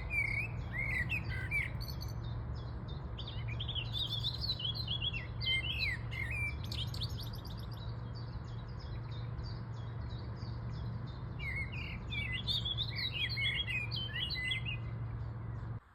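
Birds chirping and twittering in quick bursts of short notes, coming in three bouts with pauses between, over a steady low hum.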